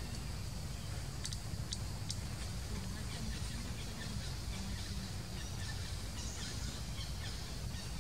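Outdoor forest ambience: a steady low rumble with a faint high hiss, and a few short high chirps or clicks about one to two seconds in.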